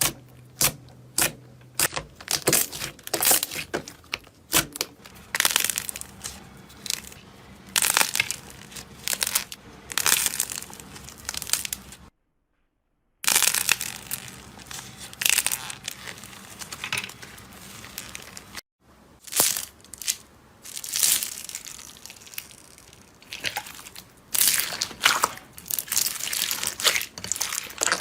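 Slime being squeezed and pressed by hand, making irregular crackling pops and clicks. The sound breaks off into silence for about a second roughly twelve seconds in, and drops out briefly again around nineteen seconds, as one clip gives way to the next.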